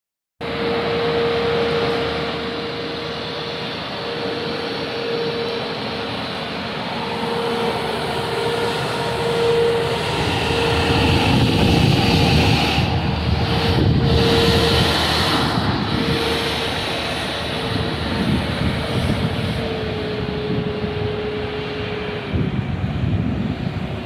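Gehl Dynalift telehandler's diesel engine running as the machine drives past, loudest about halfway through. A steady whine runs under it and cuts off near the end.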